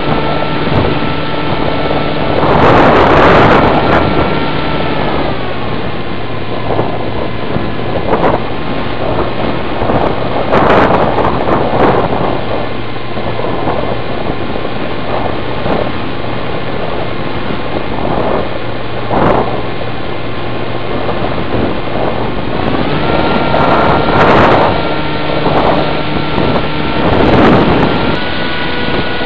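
Electric motor and propeller of an Easy Star RC plane running in flight, its whine stepping down in pitch about five seconds in and rising again near the end. Wind rushes over the onboard microphone in repeated gusts.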